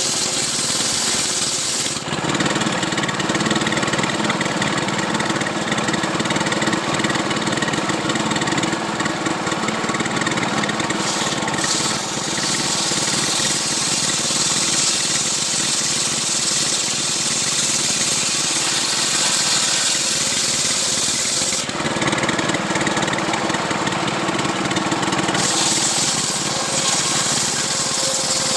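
Stihl chainsaw engine running steadily while cutting a coconut palm trunk into a beam. Its sound shifts between a brighter, hissier tone and a lower, fuller one every several seconds.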